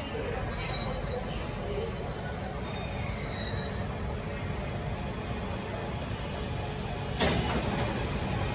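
Beijing Subway Line 8 train braking to a stop beside the platform: a high squeal from the wheels and brakes fades out over the first few seconds, leaving a steady low rumble. About seven seconds in there is a sharp burst of noise and then a short click.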